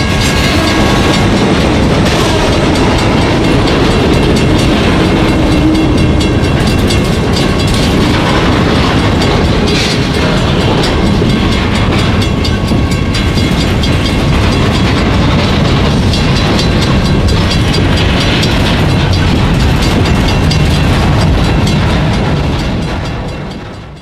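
A freight train rolling past. The EMD SD40-2 diesel locomotive's engine runs loud as it goes by, and the freight cars' wheels clatter over the rail joints. The sound fades out near the end.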